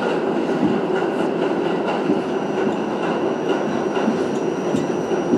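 Pullman Standard R46 subway car running through a tunnel: steady noise of wheels on rail, with faint ticks and a thin high steady whine in the later part.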